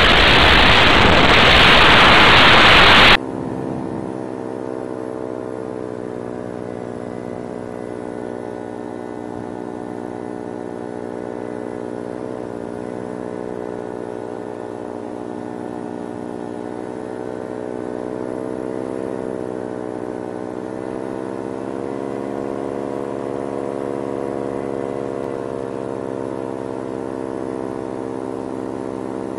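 Loud wind noise for about three seconds, cut off suddenly, then an engine running steadily, its pitch rising and falling slightly.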